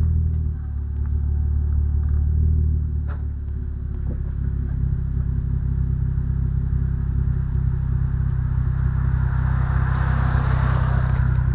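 Stock Toyota Supra's engine and exhaust running steadily with a low, even note, pitch shifting slightly once or twice. A hiss rises and fades near the end.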